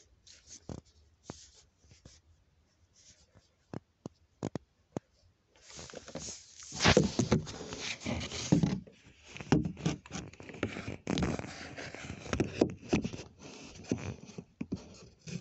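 Handling noise from a phone: a few sharp clicks and taps, then from about five seconds in, steady rubbing and scraping as the phone moves against fabric and wooden boards.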